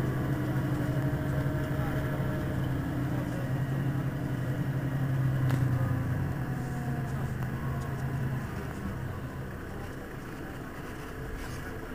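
Mercedes-Benz Citaro city bus's diesel engine idling at a stop: a steady low hum that dies down about two thirds of the way through, leaving a quieter idle. A single short click about halfway.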